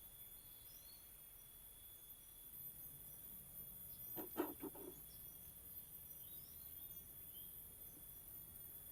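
Quiet outdoor ambience: a steady high-pitched insect drone, like crickets, with a few faint bird chirps. About four seconds in comes a quick cluster of three soft knocks or rustles.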